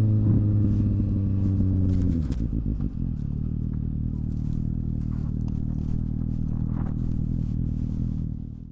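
Suzuki motorcycle engine held at steady revs, then dropping back to idle about two seconds in and idling steadily, with scattered light clicks.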